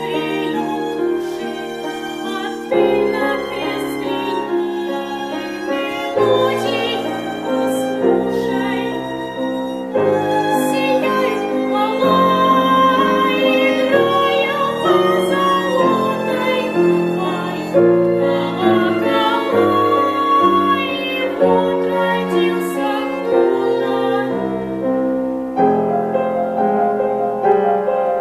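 Music with piano and bowed strings, a stretch of the song with no words picked out.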